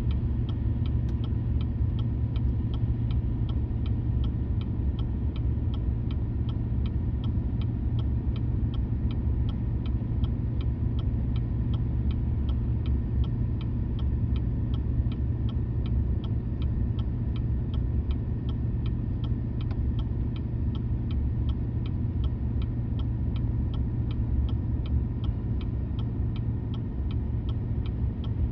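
Cab of a 4x4 Chevy 3500 dually pickup towing a heavy fifth-wheel RV on a snow-packed road: a steady low engine and road rumble, with an even ticking about twice a second.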